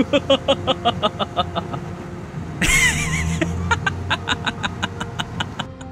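Men laughing in quick 'ha-ha-ha' pulses, in two bouts, the second starting with a louder outburst, over the steady low hum of a car's engine.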